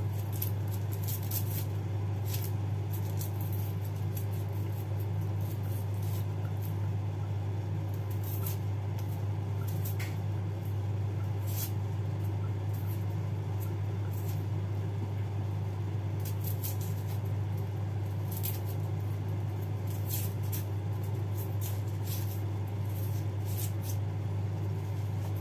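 A steady low hum, with faint irregular clicks and scrapes of a small knife peeling small red onions by hand.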